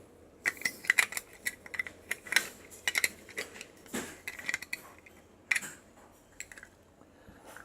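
Hand wire stripper and wire being handled: a run of irregular small metallic clicks and clinks that dies away after about five and a half seconds.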